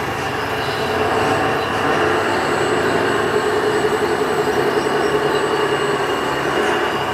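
Electric motors of radio-controlled scale construction machines running steadily, a continuous mechanical whine over a noisy hum.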